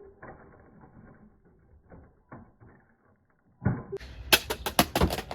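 Plastic Kidde smoke alarms being handled and knocked: a few faint clicks, then about three and a half seconds in a loud clatter of sharp knocks and bangs.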